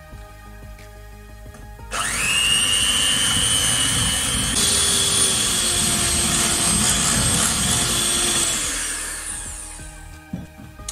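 Electric hand mixer with twin beaters whisking egg yolks and sugar until pale, in a glass bowl. It switches on abruptly about two seconds in with a steady high motor whine, and its pitch shifts about halfway through. It winds down over the last couple of seconds.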